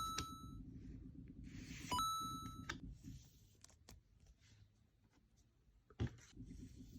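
Two short bright dings with a clear bell-like ring, about two seconds apart, over a low steady hum. Soft rustles of card handling come between, the hum drops out for a few seconds, and a single sharp click comes about six seconds in.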